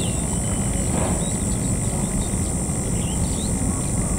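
Steady high-pitched insect buzzing with scattered bird chirps, over a steady low rumble.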